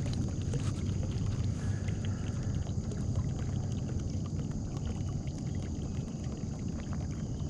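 Small boat under way: a motor running steadily with a low hum, and water noise around the hull.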